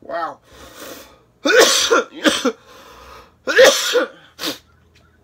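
A man coughing hard, a run of about five harsh coughs with his voice in them, the loudest pair in the middle. This is typical of coughing after a hit of smoke from a glass pipe.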